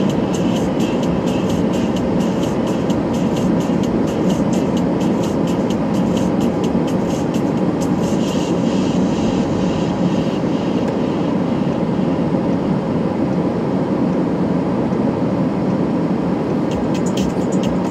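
Steady rumbling noise of a moving vehicle, heard from on board.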